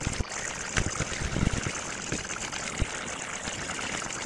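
A steady rushing hiss, like running or sprayed water, with scattered clicks and knocks of plastic chainsaw housing parts being handled; the sharpest click comes near three seconds in.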